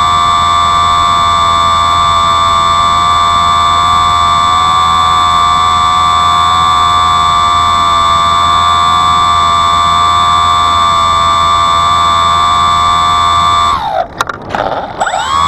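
A drone's motor and propeller whining steadily at a fixed pitch, with a low hum under it. Near the end the whine dips steeply and swoops back up.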